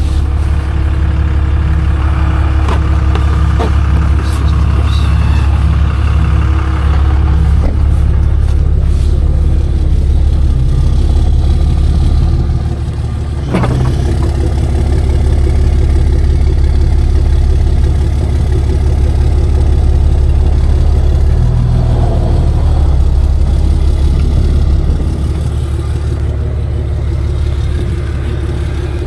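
Wrecker's engine running steadily at idle, a loud low hum, with a single sharp knock about halfway through.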